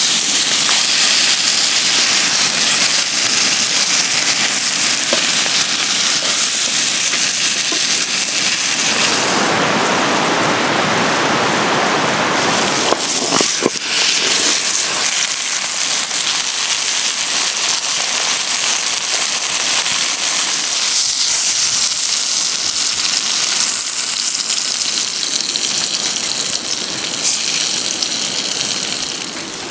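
Trout frying in hot oil in a pan over a wood fire: a steady, loud sizzle. The hiss thickens for a few seconds from about nine seconds in, and a single sharp knock comes at about thirteen and a half seconds.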